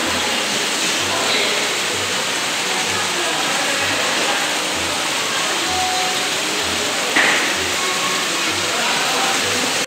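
Steady rush of water pouring and churning into a fishing-pond pen, with a faint low beat of background music underneath.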